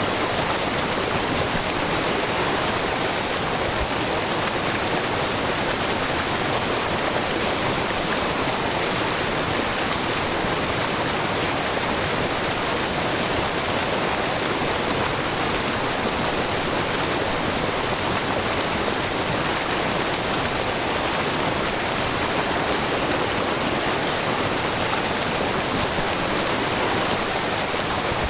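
Shiraito Falls, a low, very wide waterfall of spring water spilling in many thin streams over a rock face, making a steady, even rush of falling water.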